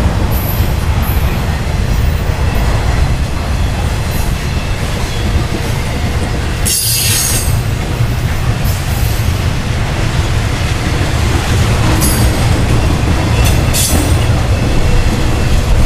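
Intermodal freight train's trailer-loaded flatcars rolling past close by: a loud, steady rumble of steel wheels on rail. Brief high-pitched wheel squeals come a few times, around the middle and near the end.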